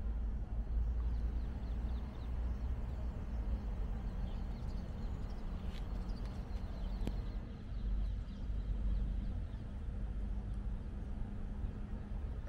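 Outdoor city street ambience: a steady low rumble of traffic and open air, with a few faint high chirps and a couple of sharp clicks partway through.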